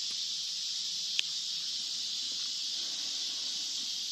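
Steady, high-pitched insect chorus, crickets or cicadas, with a single sharp click about a second in.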